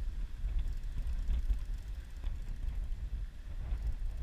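Low, uneven rumble on a sportfishing boat at sea: the boat's running noise and wind on the microphone.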